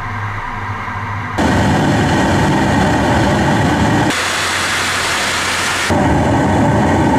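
Steady, loud aircraft engine noise, cutting abruptly between several edited shots, the louder ones with a deep rumble.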